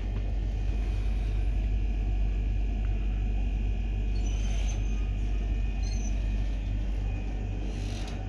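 Steady low rumbling hum, with a couple of faint small clicks about halfway through.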